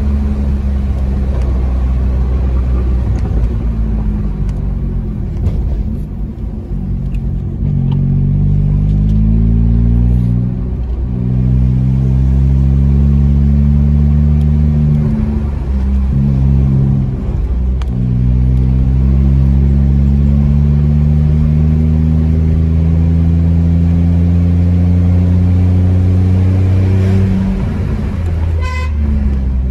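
Volkswagen Polo's engine and exhaust note, heard from inside the cabin on the move. The pitch climbs under acceleration and drops at the gear changes, then rises in one long, slow pull through the second half. A short horn toot sounds near the end.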